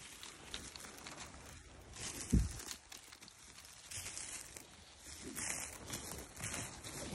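Footsteps through wet, rough grass, with rustling and crunching that grows louder about five seconds in. A single low thump about two and a half seconds in.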